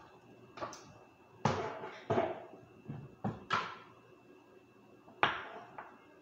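A series of about seven sharp knocks and thuds at uneven intervals, like objects being knocked or set down on a hard kitchen surface; the loudest come about one and a half, two and five seconds in.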